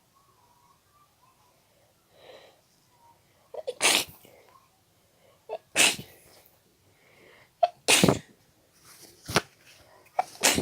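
A person sneezing uncovered, a run of several sharp sneezes about one and a half to two seconds apart. The first comes about four seconds in, after a short quiet lead-in.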